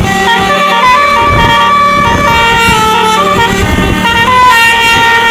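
Tour bus's Basuri telolet horn playing a melody: several sustained horn tones sounding together and stepping from note to note, over a low rumble.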